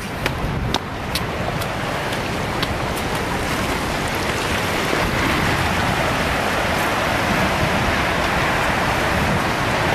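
Steady rushing noise of tsunami floodwater, with a few sharp cracks in the first few seconds and growing slightly louder about halfway through.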